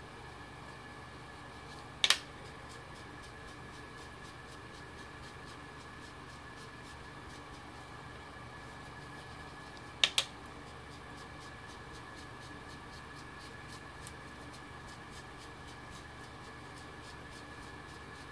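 Foam ink dauber dabbing ink through a metal stencil: faint quick taps over a steady background hum, with two sharp double clicks about two seconds and ten seconds in.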